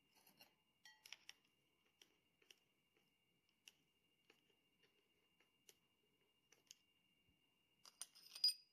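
Faint, scattered metal clicks and taps from Model T transmission parts being handled, with a brighter cluster of ringing metal clinks near the end.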